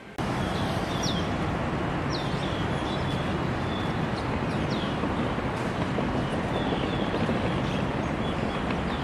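Open-air city background: a steady hum of traffic, with small birds giving short, sharp chirps every second or so over it.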